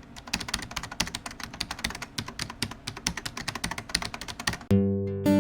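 Fast typing on a keyboard, a dense run of sharp clicks, several a second. Near the end it stops and plucked guitar notes begin.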